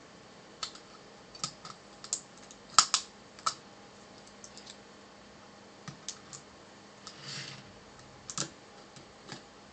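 Seagate Barracuda ATA III hard drive's metal case being handled and worked on during disassembly: irregular small sharp clicks and taps, with a brief scrape about seven seconds in.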